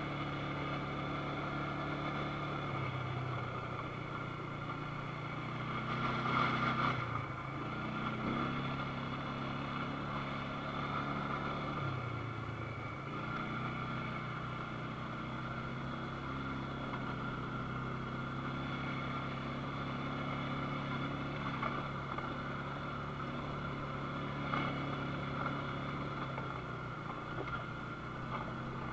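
ATV engine running as it is ridden, its pitch shifting up and down in steps as the throttle and speed change. A brief louder rush of noise comes about six seconds in.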